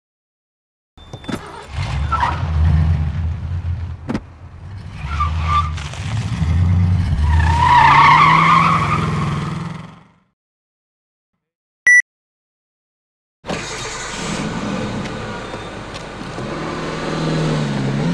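Car engine starting: it cranks with a low pulsing beat about a second in, catches and revs with a rising whine, and cuts off after about nine seconds. A short beep follows, then a second car engine runs steadily, its pitch dipping and rising again near the end.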